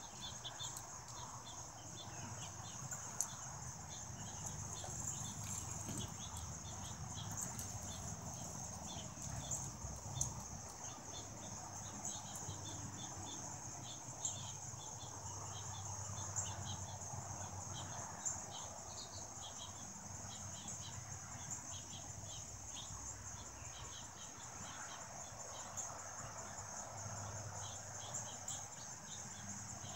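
Steady, high-pitched chorus of insects, with short chirps repeating over it and a few faint ticks.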